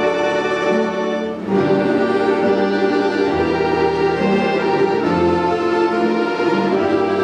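An ensemble of Russian folk instruments playing a round-dance tune in sustained, held notes, with a brief drop in the sound about a second and a half in before the music swells back.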